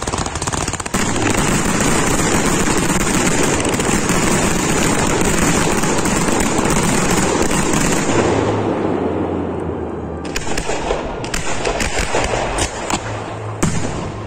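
Professional fireworks display, its firework batteries going off in a dense, unbroken barrage of bangs and crackle for about eight seconds. The barrage then eases, and separate sharp bangs and crackles follow.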